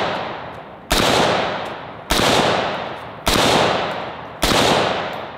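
Palmetto State Armory AR-10 semi-automatic rifle firing .308 rounds: four shots a little over a second apart, each followed by a long echo rolling away. It opens on the fading echo of an earlier shot.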